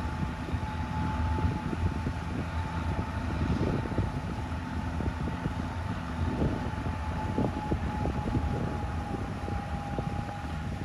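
Boat-launching tractor's engine running in a steady low rumble as it pushes a boat trailer out through shallow water. A steady high whine runs over it and fades out near the end.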